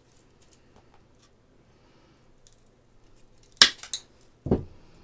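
Faint ticks and rustle of a bundle of thin wooden sticks being sorted by hand, then two sharp clacks about three and a half seconds in and a duller thump shortly after, as sticks and tools are knocked and set down on the workbench.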